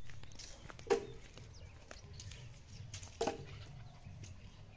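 Red-nose pit bull puppy giving two short, sharp yaps about two seconds apart.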